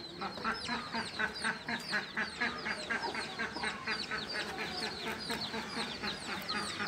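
Birds cheeping: a quick, continuous run of short, high peeps, each falling in pitch, about three or four a second.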